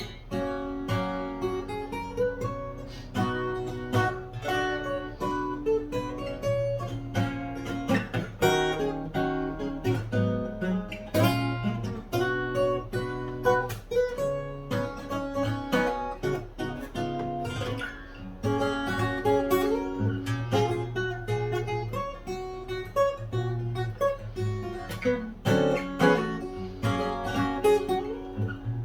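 Solo fingerstyle acoustic guitar in EADGBD tuning with a capo at the 2nd fret, playing a melody over sustained bass notes with occasional strums.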